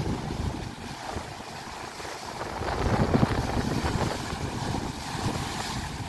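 Sea waves surging and breaking over shoreline boulders, with wind buffeting the microphone. A swell builds to a louder wash about three seconds in.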